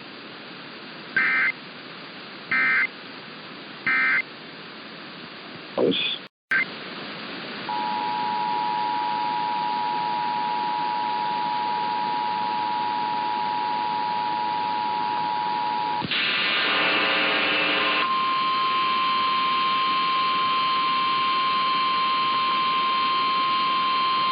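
Emergency Alert System tones heard over AM radio. It opens with three short digital data bursts, the end-of-message code. After a brief dropout about six seconds in, the two-tone attention signal (about 853 and 960 Hz) sounds for about eight seconds. A short snatch of voice follows, then a steady single alert tone near 1050 Hz runs on, the signal that a new warning is about to be read.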